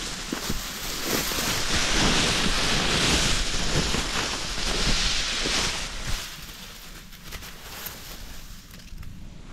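Wind rustling through dry grass and reeds around a ground-level trail camera, with low wind rumble on its microphone; the rustling eases about six seconds in.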